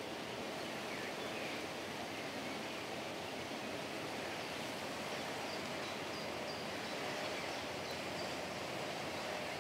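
Steady outdoor ambience: an even, soft hiss of open air around trees.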